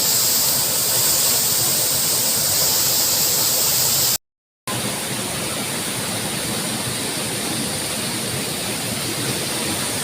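Steady rushing of a waterfall. The sound cuts out for about half a second about four seconds in, then carries on a little quieter.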